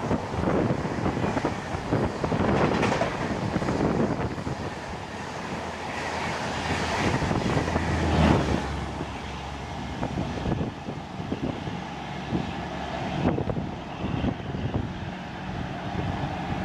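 LHB passenger coaches passing at high speed: a dense run of wheel clatter over rail joints with rushing air, loudest as the louvred rear power car goes by about eight seconds in. The sound then eases to a fading rush as the train recedes.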